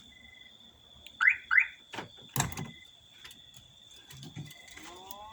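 Two short high squeaks and a sharp click as the car door is tampered with. Near the end the car security alarm's siren starts up, rising steadily in pitch.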